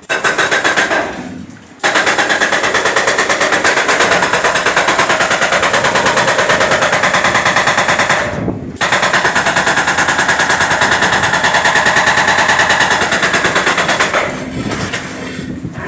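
Jackhammer hammering into micro-tunnel concrete in rapid, continuous blows. It stops briefly about a second in and again about halfway, then goes on more quietly near the end.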